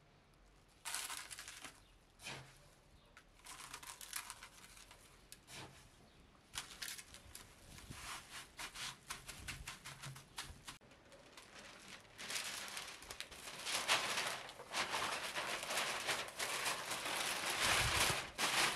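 Coarse salt crunching and scraping in a metal tray as gloved hands and a spatula spread it, in short irregular crunches. From about twelve seconds in, louder and steadier crinkling of paper and foil sheets being handled.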